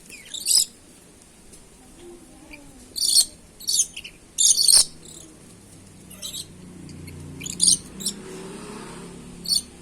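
Red-and-black lory giving short, harsh screeching squawks, about eight calls at irregular intervals. A faint low hum runs underneath from about six to nine seconds in.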